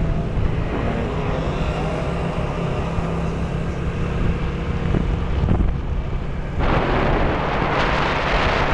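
Small motorbike engine running steadily while riding, with wind rushing over the microphone from about two-thirds of the way through.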